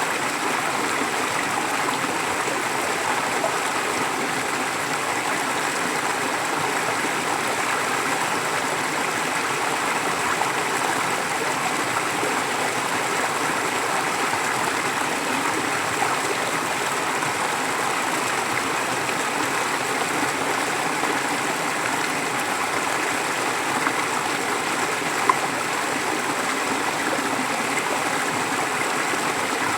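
Forest stream flowing steadily, water running and gurgling over rocks in an even rushing wash, with a faint click about 25 seconds in.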